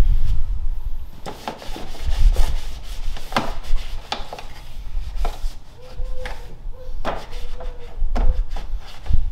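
Cloth rag wiping and rubbing dirt off a car's front bumper reinforcement bar, with scattered light knocks and clicks as it catches on the bar.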